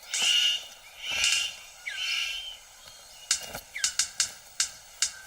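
Male superb bird of paradise courtship display: three loud harsh rasping calls, then from about three seconds in a quick run of sharp clicks, a few a second. Short falling whistles sound here and there.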